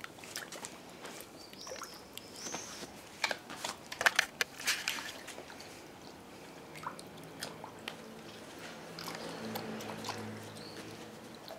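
Small dog crunching and chewing dry treats, a quick run of crisp clicks over the first few seconds, with light water splashing from its paws in a plastic paddling pool. A faint low drone comes up in the background later on.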